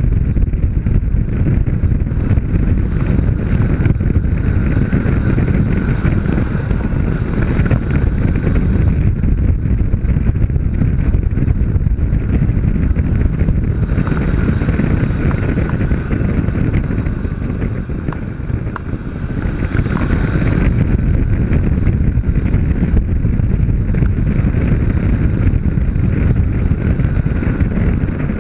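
Wind rushing over the microphone of a camera on a moving motorcycle, with a Honda CB500 parallel-twin engine running under it at track speed. The noise dips briefly about two-thirds of the way through.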